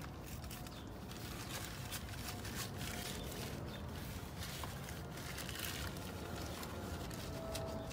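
Cloth rubbing and wiping on a car's side window and mirror, with scattered faint taps and scrapes over a steady outdoor background hum.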